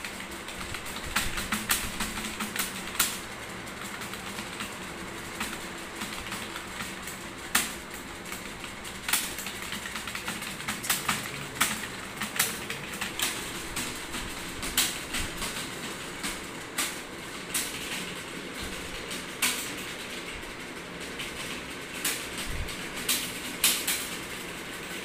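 Fast touch-typing on a ProDot computer keyboard: a continuous, irregular patter of key clicks, with a few louder clacks scattered through.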